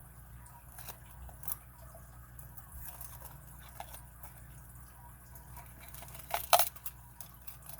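Faint small clicks and scrapes of a lock pick and tensioner working the pins inside an Abus 41/45 padlock, with a sharper cluster of clicks about six and a half seconds in.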